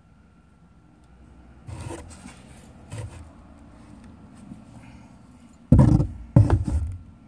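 Handling noise: a few soft rustles, then two loud, dull bumps close together near the end.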